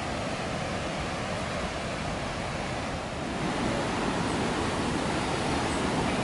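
Temperance River rushing through its rocky gorge below the footbridge: a steady rush of moving water that grows a little louder about halfway through.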